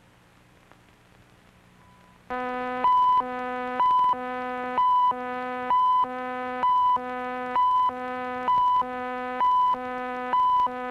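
Videotape leader countdown tone. A faint low hum gives way about two seconds in to a loud, steady buzzy tone, broken about once a second by a louder, higher beep, nine beeps in all.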